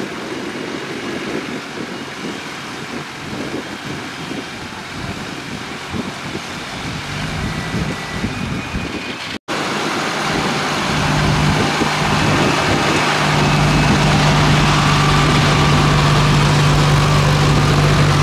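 Diesel engine of a farm harvesting machine running. For the first half it is a quieter, uneven rumble; after an abrupt cut about halfway it is louder and steady, a constant low hum.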